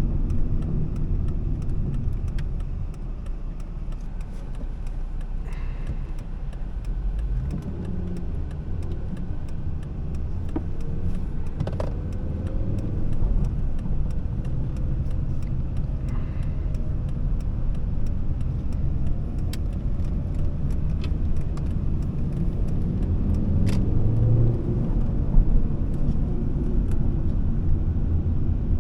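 Volvo S40's 2.4-litre five-cylinder petrol engine and tyre rumble, heard from inside the cabin while driving at ring-road speed: a steady low drone, with a few faint clicks.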